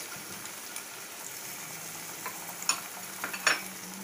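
Chopped vegetables frying in a non-stick pan, a steady sizzle, with a few light clicks of a utensil against a dish about two thirds of the way in.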